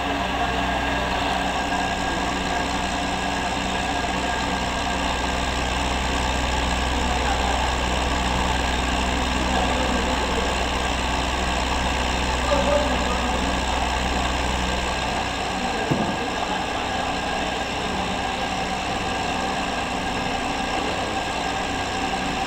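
Steady noise of running machinery on an industrial basket fryer line. A low hum cuts off about two-thirds of the way through, close to a short knock.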